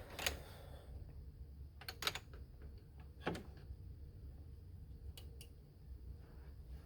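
A few separate sharp clicks, two pairs in quick succession about two and five seconds in, over a low steady hum.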